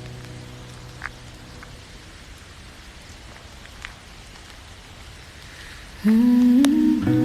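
Steady rain with a few sharp drop ticks as the last held notes of a song die away. About six seconds in, the soft instrumental intro of the next song starts suddenly and much louder, with held notes over the rain.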